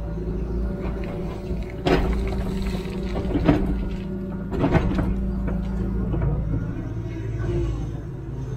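Hitachi Zaxis 210W wheeled excavator's diesel engine running steadily under hydraulic load, heard from inside the cab, while backfilling a trench. A few sharp knocks and clatters come about two, three and a half and nearly five seconds in as the bucket dumps soil and swings.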